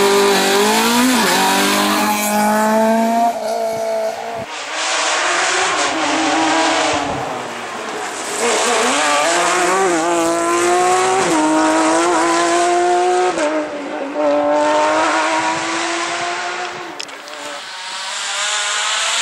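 Rally car engines at full throttle, revving up through the gears with a sudden drop in pitch at each shift or lift, and tyres squealing through the corners.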